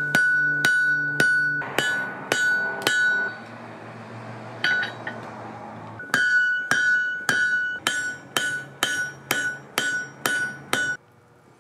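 Hand hammer striking red-hot steel held in tongs on an anvil, the anvil ringing after each blow. About six blows come at a steady pace, then a pause of a few seconds, then a quicker run of about a dozen blows that stops suddenly near the end.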